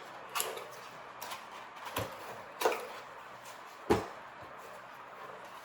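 A cardboard speaker box being opened and handled: a few sharp knocks and clicks over a light rustle of cardboard, the loudest about two and four seconds in.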